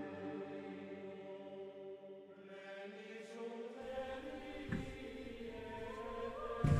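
Background music in a slow chant-like style: steady held tones, with two low thuds in the second half, the second near the end and louder.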